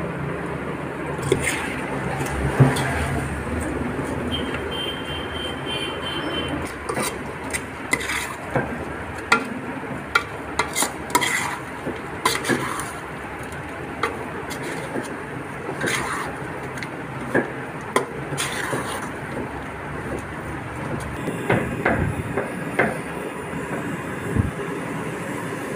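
A metal spoon scraping and clinking against a large aluminium pot as poha (flattened rice) is stirred and mixed. The clinks come irregularly over a steady background rush.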